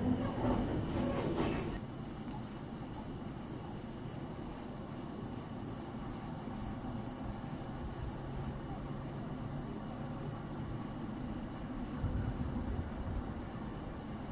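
The last of a passing train dies away within the first two seconds, leaving crickets chirping: a steady, high, evenly pulsing trill.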